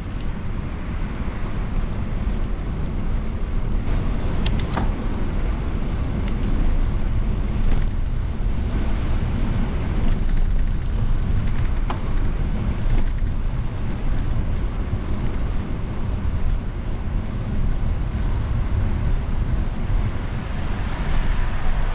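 Wind buffeting the microphone of a camera on a moving bicycle, a steady low rumble, with a few faint ticks about four and twelve seconds in.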